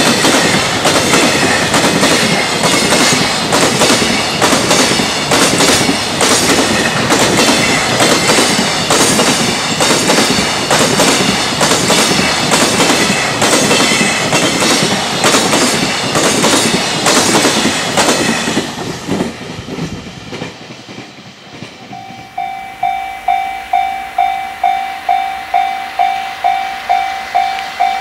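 Container freight train running past at speed, its flatcar wheels clattering over the rail joints in a fast, regular rhythm. The clatter dies away about nineteen seconds in. A few seconds later a level-crossing alarm bell starts ringing, about two and a half strikes a second.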